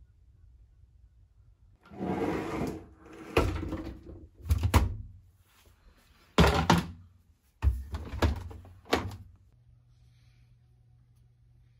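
A short scrape, then about six separate sharp knocks and thuds over several seconds, as of things being handled in a small room.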